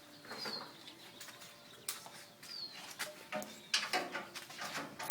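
A bird chirping: short, high chirps falling in pitch, repeated about every two seconds. Scattered clicks and knocks thicken toward the end, finishing with one sharp loud click.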